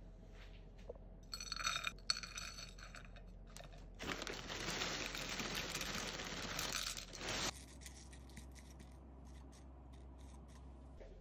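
Dry granola and brown-rice cereal flakes poured from a plastic bag onto a ceramic plate: a loud, even rattling pour of about three and a half seconds that stops abruptly. A shorter handling sound with a ringing edge comes about two seconds in, and faint light clicks follow as fingers push the cereal around the plate.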